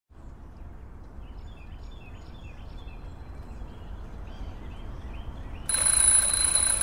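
Faint noise with small, repeated bird-like chirps that slowly grow louder. About five and a half seconds in, a steady high hiss with thin whistling tones cuts in suddenly, leading into music.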